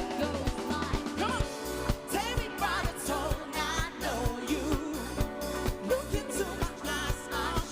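Pop song: a singing voice over a steady, even bass beat.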